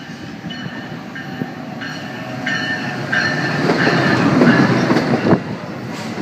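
NJ Transit ALP-46 electric locomotive and its MultiLevel coaches pulling into the station and passing close by, growing louder to a peak about four to five seconds in. High whining tones that shift in pitch in steps sit over the rumble of the wheels on the rails.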